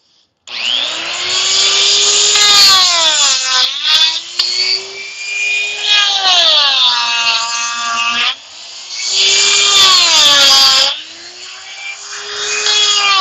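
Makita die grinder with a Kutzall carving burr cutting into wood. It starts about half a second in, and its whine drops in pitch each time the burr bites deep and rises again as it eases off, three or four times.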